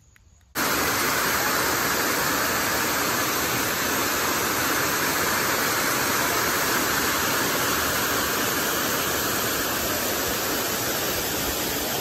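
Waterfall rushing, heard from right at its brink: loud, steady noise of falling water that starts suddenly about half a second in.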